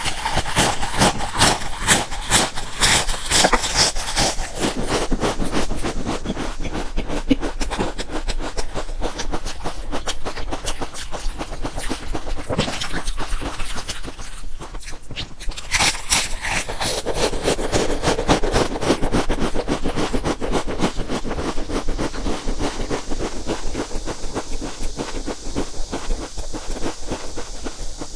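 Dense, rapid crunching and crackling of a mouthful of stacked thin crisps being bitten and chewed close to the microphone, heaviest in the first few seconds and again after a fresh bite about sixteen seconds in.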